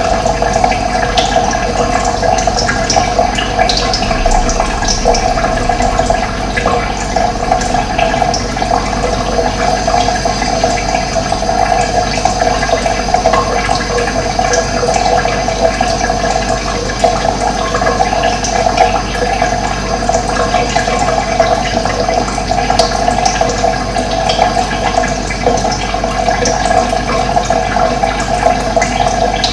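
Steady rush of running water, with occasional short high bird chirps over it.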